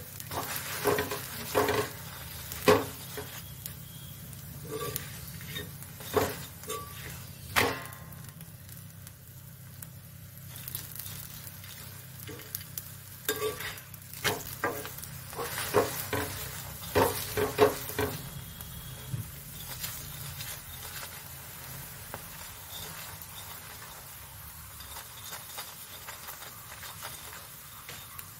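Stuffed paratha frying in oil on a tawa, sizzling steadily, with a metal spatula scraping and tapping against the pan in clusters of sharp clicks during the first eight seconds and again from about 13 to 18 seconds.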